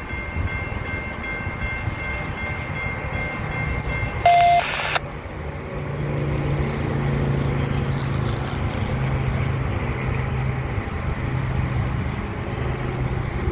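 Railroad crossing warning bell ringing steadily, cutting off about four seconds in with a brief loud honk. After that a low steady rumble of rail and road traffic carries on while the crossing gates lift.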